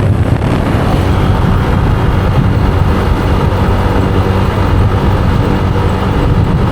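Small motorbike engine running steadily while riding, with wind and road noise.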